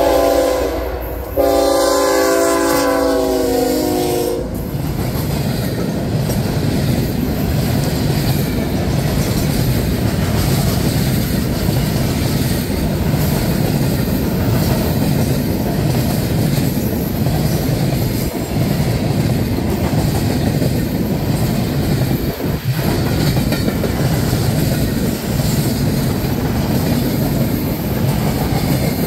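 BNSF freight locomotive's air horn sounding a short blast and then a longer one that ends about four seconds in. After that comes the steady rolling noise of the train passing close by, with a string of empty flatcars going over the rails and a few faint knocks.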